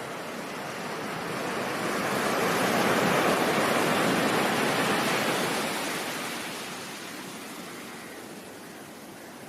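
Ocean surf as steady white-noise-like rushing: one wave swells over a couple of seconds to a peak about three to five seconds in, then washes back to a softer hiss.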